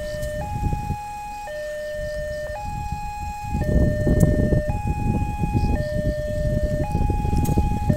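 Railway level-crossing warning siren sounding a two-tone call, alternating between a lower and a higher note about once a second. A low rumbling noise grows louder about three and a half seconds in.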